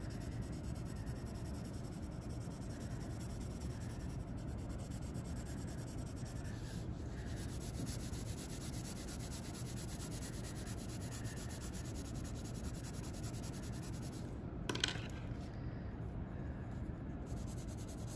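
Graphite pencil shading on paper: repeated back-and-forth hatching strokes scratching across the sheet, with one brief sharper tap or scrape about three quarters of the way through.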